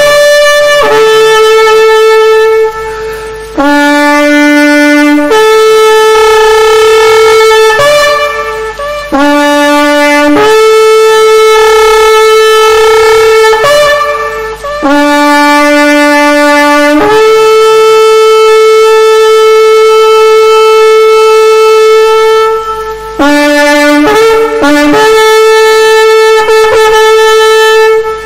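Shofar (ram's horn) blown in a series of calls. Several long held blasts start on a lower note and jump up to a higher one, and the longest is held for about six seconds. A run of short, quick blasts comes a few seconds before the end.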